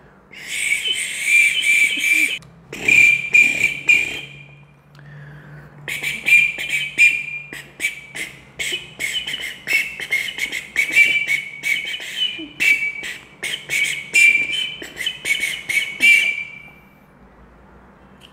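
The emergency whistle built into an Opinel Explore No 12 knife, blown in a long run of short toots at one high pitch, tapped out in rhythm as an attempt to play music on it. The toots pause for about a second and a half a few seconds in, then carry on until shortly before the end.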